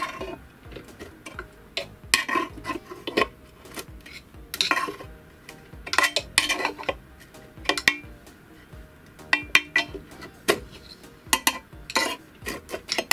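Screwdriver working the screws of a bench grinder's pressed-steel wheel-guard cover: irregular metallic clinks and scrapes, in short clusters.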